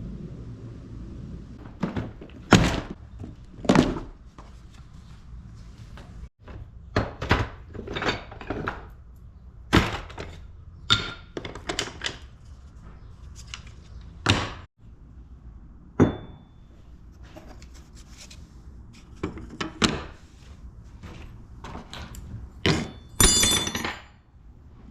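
Rocks rattling inside a capped ABS plastic pipe as it is tipped and shaken end to end to stone wash a knife blade: a run of irregular thunks, some in quick clusters and some a couple of seconds apart, with a longer clatter near the end.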